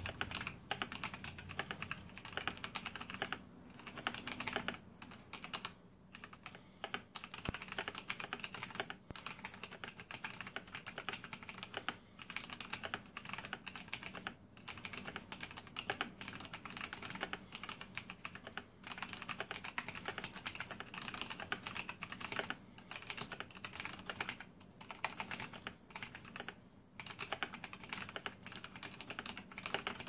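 Fast, continuous typing on a Razer BlackWidow mechanical keyboard with Kailh Orange key switches, tactile switches without a click. There are dense keystroke clacks with a short pause every few seconds.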